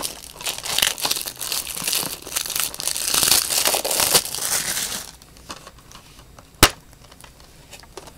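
Plastic shrink wrap being torn and crinkled off a Blu-ray case in dense crackling for about five seconds. It is followed by a quieter stretch and one sharp click as the plastic case is snapped open.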